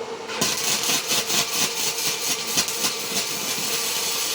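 Arc welder striking up about half a second in and welding with a crackling, uneven sputter: the welder's current is set too low.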